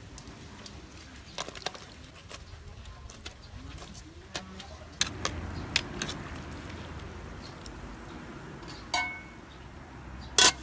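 Metal cooking clatter: a steel ladle knocking and scraping against a metal pot of boiling water as cut yam stalks are stirred in, scattered knocks through the middle. About a second and a half before the end comes a short ringing metal knock. Just at the end a loud clank as the metal lid is set down on the pot, the loudest sound.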